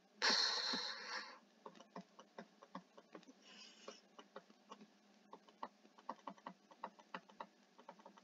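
Faint, irregular small clicks and taps, several a second, from handwriting on screen with a digital pen tool. A loud breath into the microphone lasts about a second near the start, and a softer one comes near the middle.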